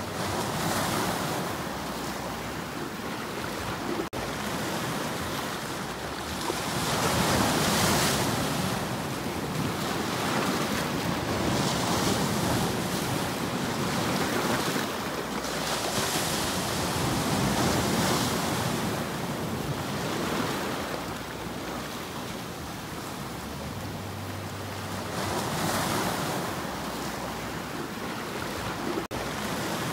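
Sea surf breaking and washing over shore rocks, a noisy rush that swells and ebbs every few seconds as each wave comes in. The sound drops out for an instant twice.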